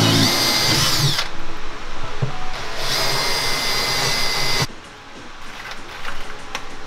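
Cordless drill-driver motor whining as it drives screws, in two runs: the first stops about a second in, the second goes for about two seconds from about three seconds in. Fainter clicks and handling follow near the end.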